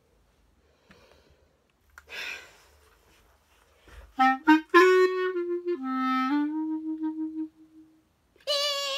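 A clarinet plays a short phrase: a few quick short notes, then a run of repeated notes on one pitch that fades out. A breath is heard a couple of seconds before it.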